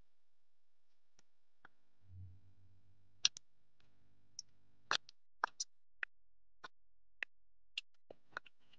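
Faint footsteps on a dirt and gravel road shoulder: short sharp clicks at about two a second over near silence, with a brief low hum around two seconds in.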